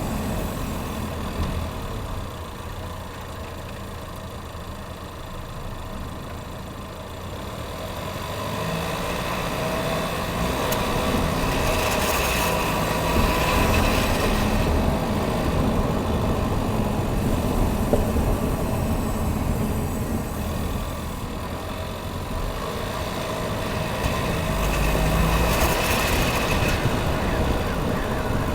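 A 2019 Chevrolet Equinox running, a steady engine and vehicle sound that quietens a few seconds in and then grows louder again, with two louder, brighter spells, one about halfway and one near the end.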